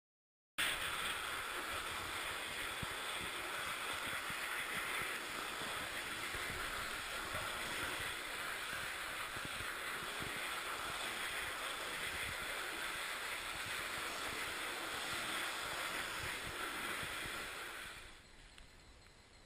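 Steady rushing noise of wind on the microphone and tyres rolling over snow-covered lake ice while a loaded touring bicycle is ridden. It starts abruptly and drops to a faint hiss near the end.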